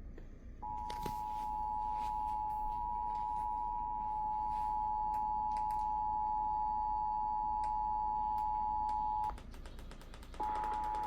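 Emergency Alert System attention signal received over the radio: two steady tones sounding together at 853 and 960 Hz. They break off about nine seconds in and start again about a second later, with scattered clicks.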